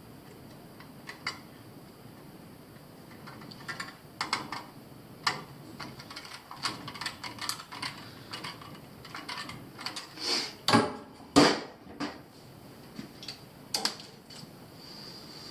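Irregular small clicks, taps and knocks of hand tools and wires being handled at a Honeywell zone valve's wiring terminals, with a couple of louder knocks about two-thirds of the way through.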